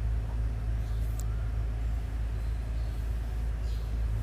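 Steady low background hum with a faint hiss, the same recording noise that runs under the narration, with a faint tick about a second in.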